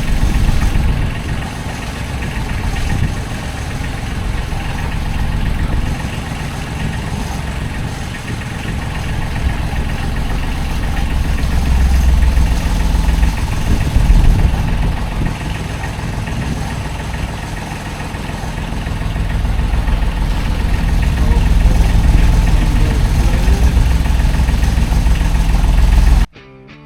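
A sailboat's inboard diesel engine running steadily, heard as a low rumble. It cuts off abruptly just before the end.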